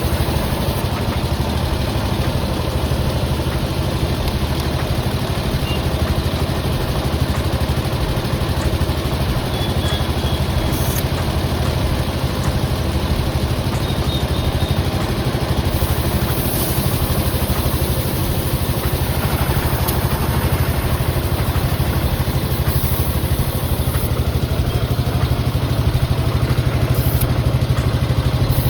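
An engine idling steadily, with a few short hisses over it in the second half.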